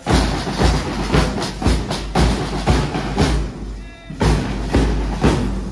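Marching band drums, side drums and bass drums, beating a steady march rhythm of about three to four strokes a second, with a brief break about four seconds in.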